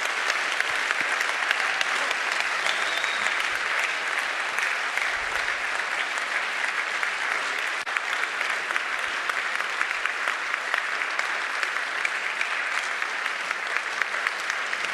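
Sustained applause from a large audience, many hands clapping at a steady level.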